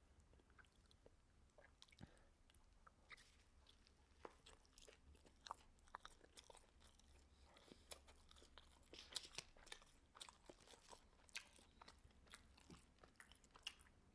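A person chewing and biting food close to the microphone: faint, irregular crunches and wet mouth clicks. They are sparse at first and come more often from about four seconds in.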